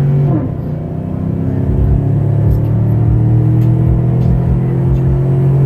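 2015 Chevrolet Silverado's 5.3-litre V8 pulling at wide-open throttle through a custom dual exhaust. The engine note drops at an upshift about half a second in, then climbs steadily as the revs rise through the next gear.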